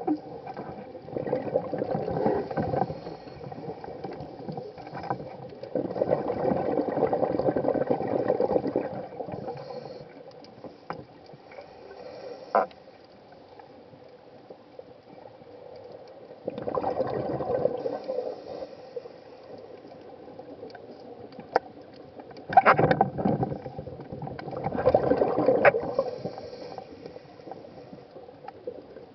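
Scuba diver's exhaled bubbles from the regulator, heard underwater: about five bubbling bursts, each one to three seconds long and several seconds apart, over a quiet background hiss.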